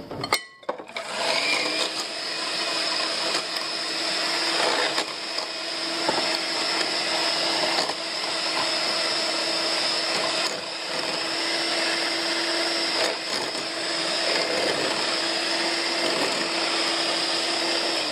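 KitchenWorks electric hand mixer switched on about a second in and running steadily, its beaters whisking cream in a glass bowl.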